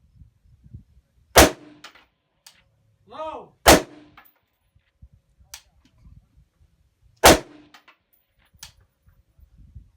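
Three rifle shots from an AR-15, the second about two seconds after the first and the third about three and a half seconds later. Each is followed by a brief low ring, with fainter clicks in between.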